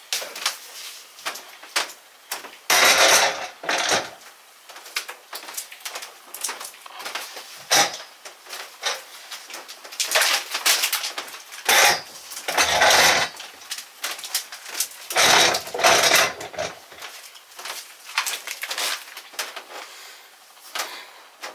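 Metal-legged upholstered chairs being moved and set down on a hardwood floor: a run of knocks and clicks, with three longer scraping stretches as the chairs are pushed into place, about three seconds in, near the middle and about two-thirds through.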